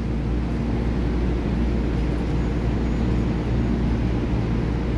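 Steady low hum of an EMU3000 electric multiple unit standing at the platform, with no change in pitch or level.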